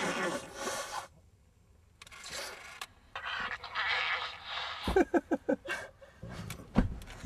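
A person blowing their nose into a tissue and sniffling in several breathy bursts, then a quick run of short vocal gasps about five seconds in.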